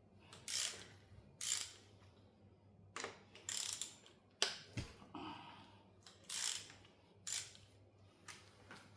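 Hand ratchet wrench clicking in about nine short strokes at irregular intervals, as bolts are undone during an engine teardown.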